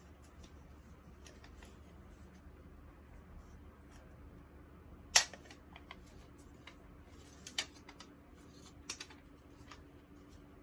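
Hands unpacking and handling study materials: scattered sharp clicks and taps, the loudest about halfway through and two smaller ones later, over faint rustling and a low steady hum.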